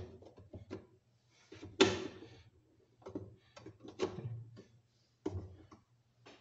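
Hollow plastic knocks and rattles from Fluval 306 canister filter parts being handled and set in place during reassembly. There are several separate clunks, the loudest about two seconds in and another about four seconds in.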